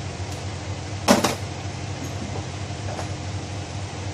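Metal clanking from a Toyota Passo steering rack being worked by hand in a bench vise: one sharp clank about a second in, then a few lighter knocks. A steady low hum runs underneath.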